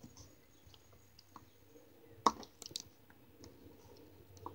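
Jiggly slime poked and squished by hand: faint scattered sticky clicks, the sharpest a little over two seconds in, followed by a few smaller ones.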